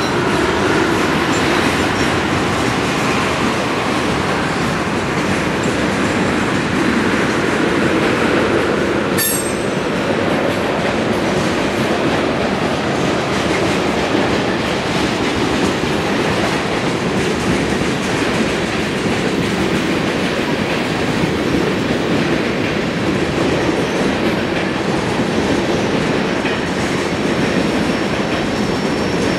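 Freight train cars rolling past close by: a loud, steady rumble of steel wheels on the rails with a clickety-clack. A single sharp metallic clank comes about nine seconds in, and a faint high squeal is heard near the end.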